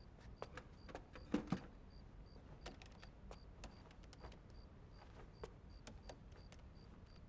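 Quiet room with scattered small clicks and taps, two louder knocks about a second and a half in, and a faint high chirp repeating about three times a second.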